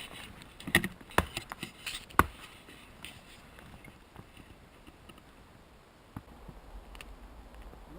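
A few sharp knocks or snaps of wood being worked, the loudest about a second and about two seconds in, then faint scattered clicks and rustling.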